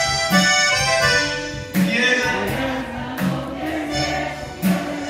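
Tejano band playing live, the accordion leading over electric guitar, keyboard and drums, with a strong drum beat about every second and a half.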